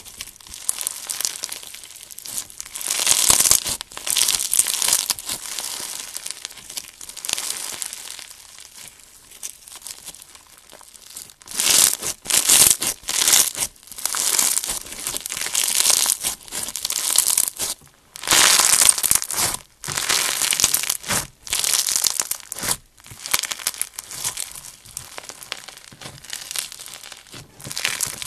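Pink floam slime, packed with small foam beads, crackling and crunching as hands squeeze, stretch and knead it. The crackle comes in bouts with short pauses between squeezes, and is loudest in the middle stretch.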